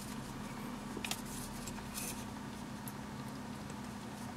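Faint handling of a plastic sunglasses frame in the hands: a few soft clicks and rustles over a steady low hum.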